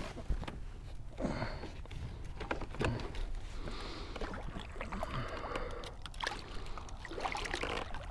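A hooked redfish splashing and thrashing in the water right beside a kayak's hull as it is brought in to be landed, with scattered knocks and clicks of gear and paddle against the plastic hull.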